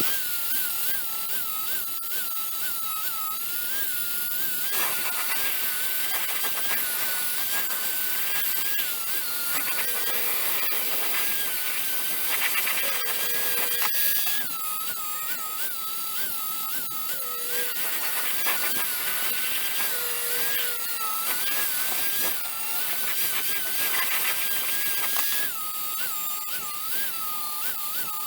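Electric power tool running continuously, its motor pitch dipping and recovering over and over as it is loaded against the work.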